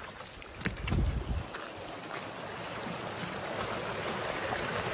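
Runoff water rushing out of a freshly unblocked farm drain outlet, a steady flow that grows louder toward the end. A few knocks and thumps about a second in.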